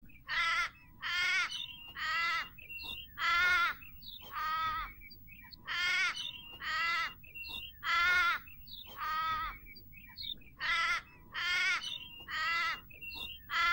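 A crow cawing over and over: harsh, drawn-out calls about one a second.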